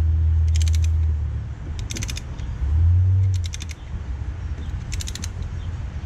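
Ratcheting caliper piston compressor tool clicking in four short bursts as its handle is worked, pushing a front brake caliper piston back into its bore. Under it a low rumble, strongest in the first second and again about three seconds in.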